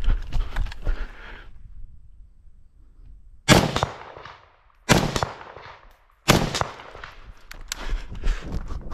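Three rifle shots from a semi-automatic CMP M1 Garand chambered in .308, about a second and a half apart, each trailing off briefly. Crunching on gravel from the shooter moving comes before the shots and picks up again after them.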